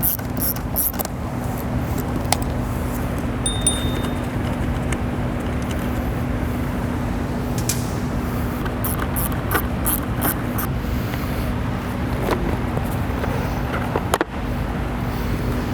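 Scattered clicks and metallic clinks of hand tools and bolts as a motorcycle seat is unbolted with an Allen key and pulled off, over a steady low hum.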